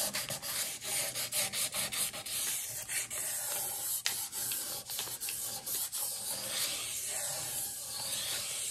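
Extremely fine aluminium oxide sandpaper rubbed under one fingertip around the inner mating surface of a Linn LP12 outer platter, making a dry, scratchy rub in quick, irregular short strokes. The sanding takes off oxidation spots, caused mostly by finger oil, that stop the platter mating properly with the inner platter.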